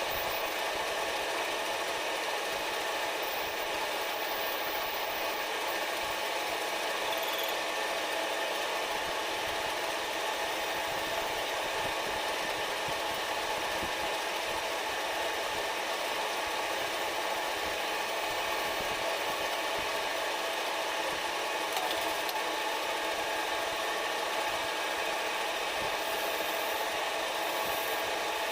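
Manual metal lathe running steadily, a constant machine hum with a steady whine of several fixed tones.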